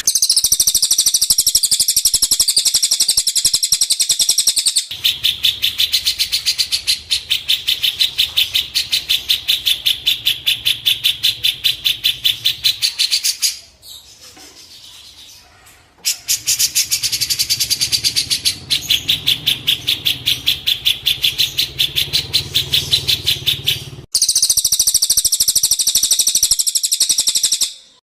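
High-pitched songbird trill of rapid, evenly repeated notes, recorded as masteran training song. It comes in long runs, dropping away for a couple of seconds about halfway through and shifting higher near the end before it stops.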